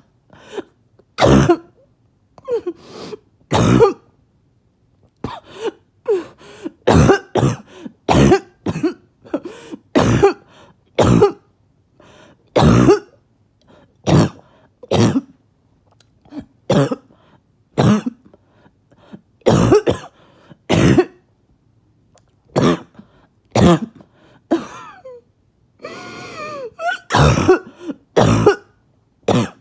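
A person's harsh, barking cough in repeated fits: loud single coughs, pairs and quick runs of coughs with short gaps between them. Near the end the coughing runs into a longer, strained sound whose pitch wavers.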